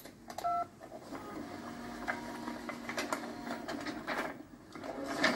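A short two-note beep, then a dot-matrix computer printer printing a list: a steady mechanical buzz with faint clicks, which pauses briefly near the end and starts again.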